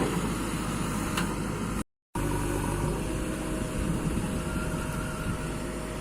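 Steady engine noise from heavy machinery, with a low hum under a noisy hiss. The sound cuts out completely for a moment about two seconds in, then resumes.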